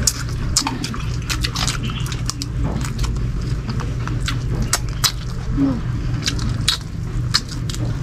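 Close-up mouth sounds of two people eating roasted quail with their hands: chewing, lip smacks and many quick wet clicks, over a steady low hum.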